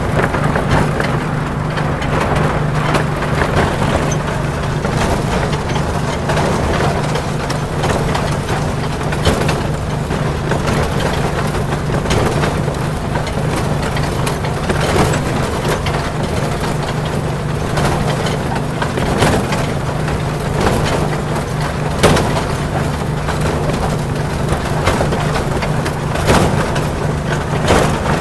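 Ride-on miniature train running along its track: a steady low engine hum under a rattling ride noise, with irregular sharp clicks and knocks of the wheels on the rails.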